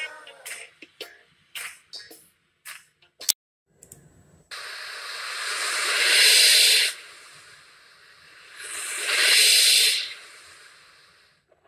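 Short vocal fragments trailing off, then two swelling rushes of hiss-like noise. The first builds over about two seconds and cuts off sharply; the second swells, peaks, and fades away.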